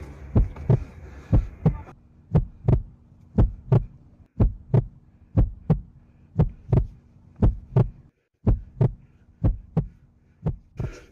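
Heartbeat sound effect: a steady double thump about once a second, eleven beats in all, over a low steady hum.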